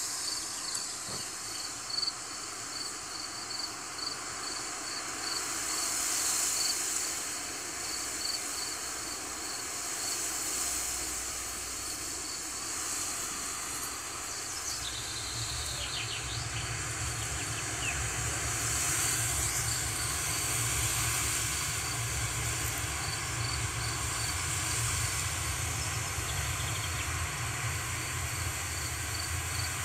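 Wind blowing through grass, a steady hiss that swells twice, with an insect chirping in quick even pulses and a low rumble of wind on the microphone from about halfway through.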